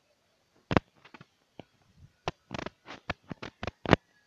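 A series of about a dozen short, sharp clicks and knocks at irregular intervals, with near silence between them.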